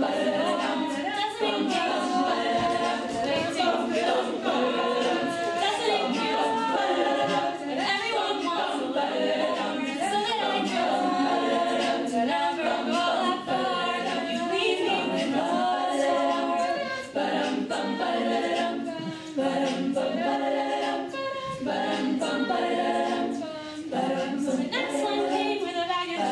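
All-female a cappella group singing live. A soloist carries the melody over the group's vocal backing, with no instruments.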